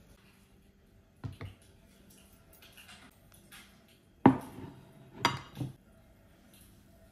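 A plate set down on a hard tabletop: a sharp clunk just after four seconds in, followed by two lighter knocks as it settles, with two fainter knocks about a second in.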